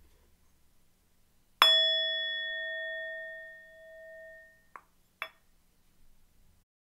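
A mindfulness bell struck once, ringing with a clear tone for about three seconds to open a moment of mindfulness. The ringing is then cut off with a short click, and a light clink follows half a second later.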